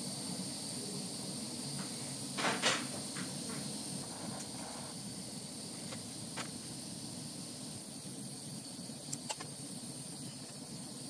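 Steady hiss of a small gas torch's blue flame heating a thin glass tube for lampworking. A few short clicks cut through it, the loudest about two and a half seconds in and another pair near the end.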